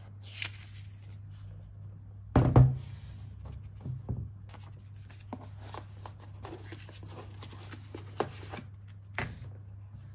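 Hands handling paper leaflets and a plastic-backed sticker sheet from a laptop box: rustling, sliding and small taps, with one loud thump about two and a half seconds in as something is set down on the wooden table. A low steady hum runs underneath.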